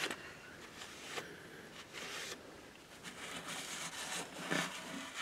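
Faint rubbing and rustling as a shop rag wipes oil off a diesel engine's crankshaft journal.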